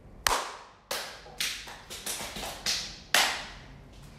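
About eight sharp, irregularly spaced hits, each trailing off over a fraction of a second; the one just after the start and the one about three seconds in are the loudest.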